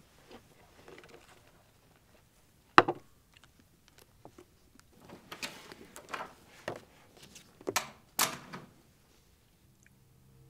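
A door shuts with a sharp bang about three seconds in. Then paper rustles several times as magazine pages are turned.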